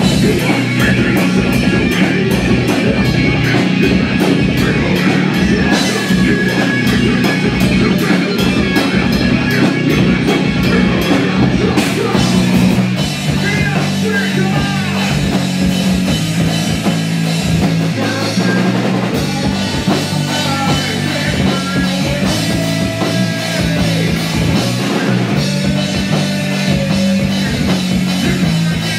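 Heavy metal band playing: fast drumming with distorted guitar and bass, and a sung vocal line coming in about halfway.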